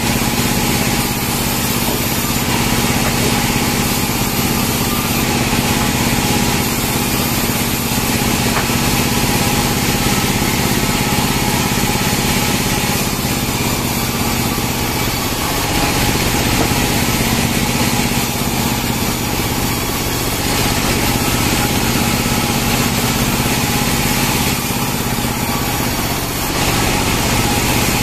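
Band sawmill running steadily with a constant machine hum while pine logs are pushed through the blade; the hum's pitch changes briefly a few times, about halfway through and near the end.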